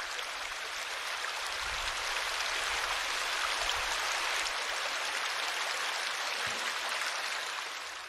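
Shallow stream running over a stony bed: a steady rushing babble of water, a little louder in the middle.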